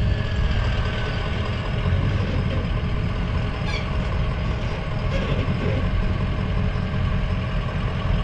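Truck engine running with a steady low rumble.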